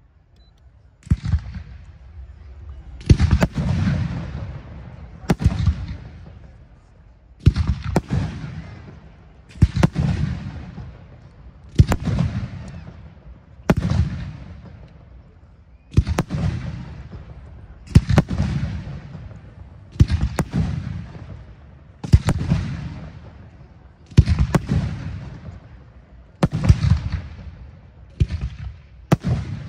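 Aerial firework shells bursting one after another, about every two seconds, each a sharp bang, sometimes two close together, followed by a long rolling echo that fades away.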